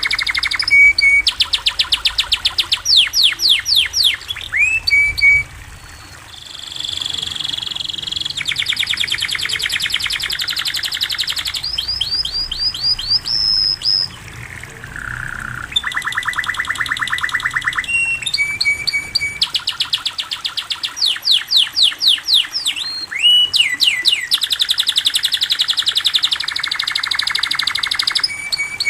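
Domestic canary singing a long, loud song of fast trills and rolls with sweeping whistled notes, the phrases following one another with hardly a break.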